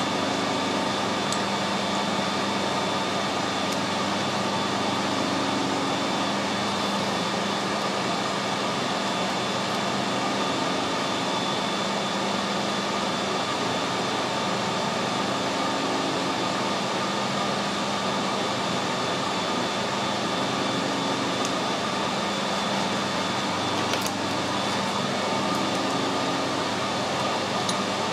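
Steady mechanical hum in the workshop, with a few faint metal clicks as a steel eccentric strap is fitted around an eccentric held in a lathe chuck, one sharper click near the end.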